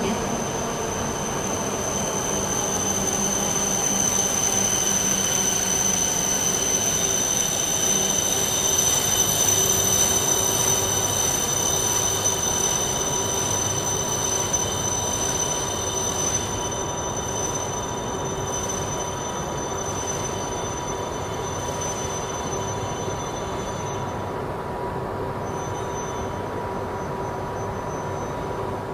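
E5 series Shinkansen train pulling into the platform and slowing, a steady rumble with high-pitched wheel and brake squeal on top. The squeal dies away in the last few seconds.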